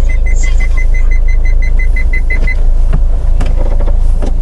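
Overhead electric hoist running to lower a hard-shell rooftop tent onto a car's roof bars: a loud, steady low motor hum with a rapid high beeping, about five beeps a second. The beeping stops a little past halfway, and the hum cuts off near the end.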